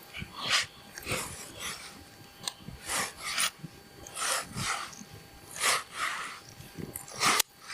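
Irregular rasping, rubbing strokes, roughly one or two a second, each a short hissy scrape.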